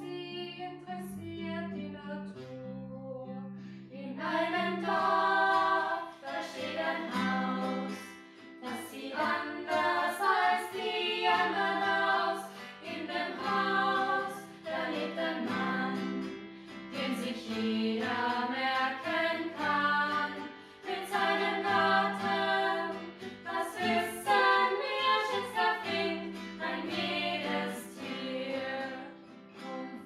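Voices singing a German song in verse with an instrumental accompaniment of held chords under the melody.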